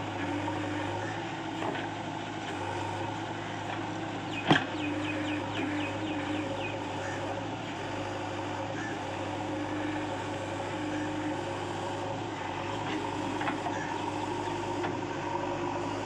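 JCB 3DX backhoe loader's diesel engine running steadily, with one sharp knock about four and a half seconds in.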